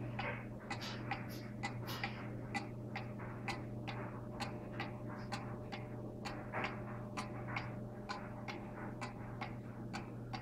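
Ansonia 'Buffalo' kitchen mantle clock from about 1895, its mechanical movement ticking steadily at about three ticks a second.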